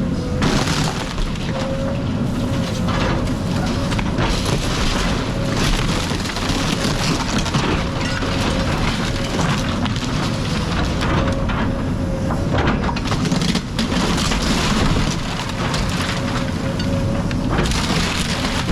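House being torn down: wood and debris crashing and crunching in repeated bursts over a heavy machine running with a steady whine.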